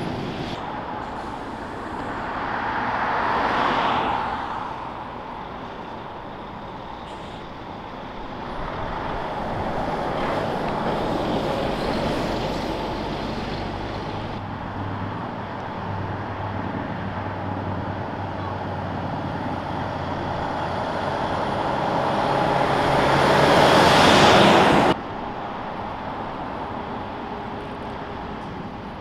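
Heavy trucks and other traffic passing on a city street, several vehicles going by one after another with engines running. The loudest one builds to a peak near the end, then the sound cuts off suddenly.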